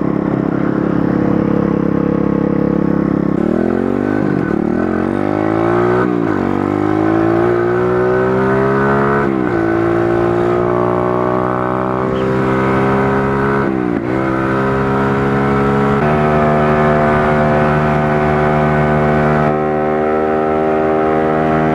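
Pit bike engine idling, then revving up as the bike pulls away, rising in pitch through the gears with a sharp drop at each shift. It then runs steadily at cruising speed.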